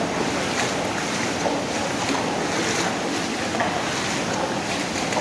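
Steady rushing noise of water from heavy rain and floodwater, with wind on the microphone.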